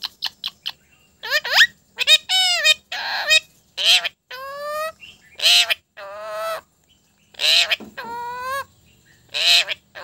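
Indian ringneck parrot calling at close range. From about a second in it gives a string of loud calls, harsh screeches alternating with longer calls that waver up and down in pitch.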